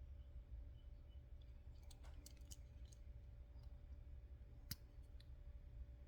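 Faint clicks and taps of diecast toy Jeeps being handled and set down: a quick cluster about two seconds in and a sharper single click near the five-second mark, over a low steady hum.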